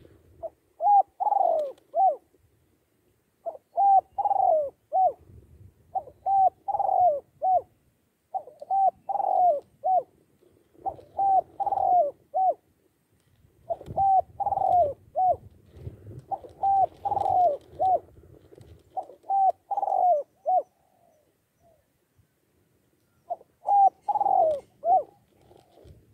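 Spotted dove cooing: a series of short phrases, each of three or four quick coos, repeated about every two and a half seconds with one longer pause near the end.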